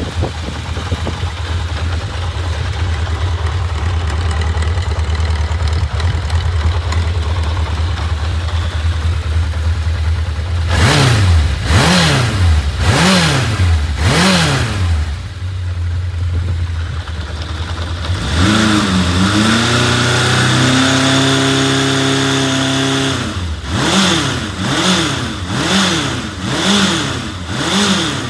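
1980 Honda CB750F (RC04) air-cooled inline-four idling steadily, then blipped four times in quick succession, brought up and held at a higher speed for a few seconds, and blipped five more times. It runs with no abnormal noise, which the seller takes as the sign of an engine in excellent condition.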